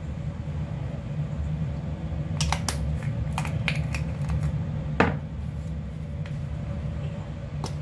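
Spice jars being handled on a kitchen counter, with a run of light clicks and taps in the middle and one sharper knock about five seconds in, as one jar is put away and the next is opened. A steady low hum runs underneath.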